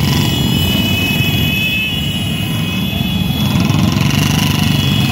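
Many motorcycle engines running together at low speed in a slow-moving crowd of riders, a dense steady rumble, with a steady high tone over the first three seconds or so.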